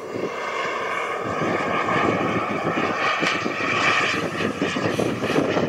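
Jet Italia Atom 250 model jet turbine in a 1:4.6-scale RC F-16 flying past: a steady high whine over a rushing noise. It grows louder over the first couple of seconds, then holds.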